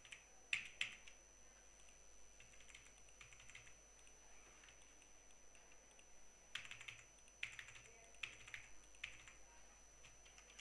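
Faint tapping of computer keyboard keys in a few short clusters of quick clicks: about half a second in, again around three seconds in, and a longer run from about six and a half to nine seconds.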